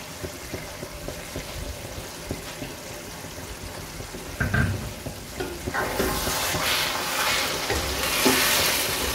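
Chicken curry simmering and bubbling softly in a wide pan. From about six seconds in, a wooden spatula stirs through the thick gravy, and the sizzling and scraping grow louder.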